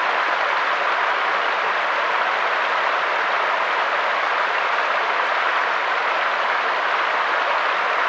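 Mountain stream flowing over rocks, a steady, even rush of water that does not change.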